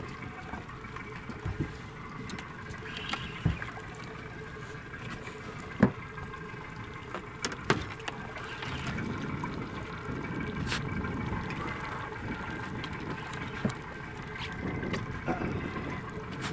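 Sea water lapping and sloshing against the side of a small fishing boat, fuller for a few seconds past the middle, with a few sharp knocks and clicks scattered through it.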